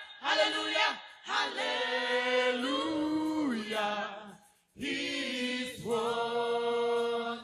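Church choir singing long held chords in harmony, with a brief break about four and a half seconds in.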